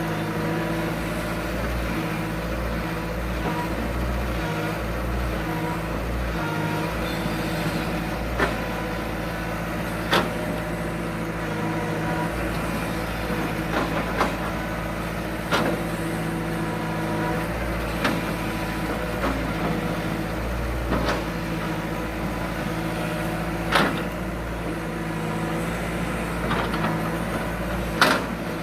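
Excavator's diesel engine running steadily, with a sharp knock every few seconds as rubberwood logs are handled and loaded onto a truck.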